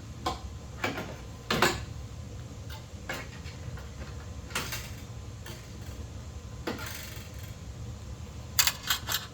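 Scattered clicks, taps and light scrapes of copper wires and hand tools being handled in an electrical box, with a quick run of clicks near the end, over a low steady hum.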